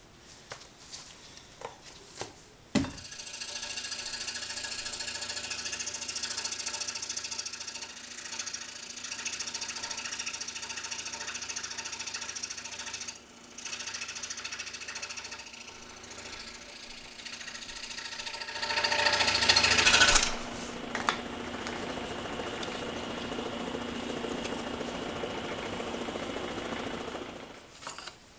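Scroll saw running, its blade cutting through stacked thin basswood. It starts with a knock about three seconds in, gets louder for a moment about two-thirds of the way through, and stops shortly before the end.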